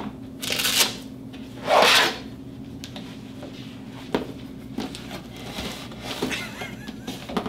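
Machete blade drawn and scraped, with two loud rasping scrapes in the first two seconds, the second the louder. Then a few light ticks and scrapes follow as the blade slits the packing tape on a cardboard box.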